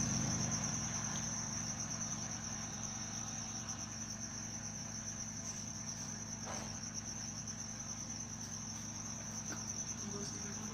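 A cricket trilling steadily and high, with a steady low hum underneath.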